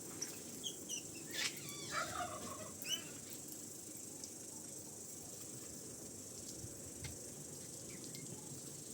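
A bird calling in a quick series of short, warbling notes during the first three seconds, then only a steady faint background.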